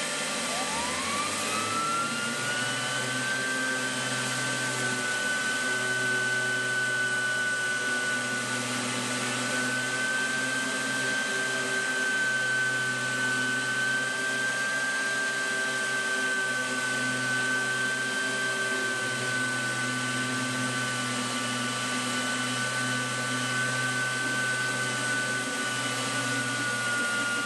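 Electric random orbital sander, connected to a dust-extraction hose, sanding hard Coppercoat (copper-filled epoxy) on a boat hull. Its whine rises as the motor spins up over the first couple of seconds, then runs steadily over a low hum.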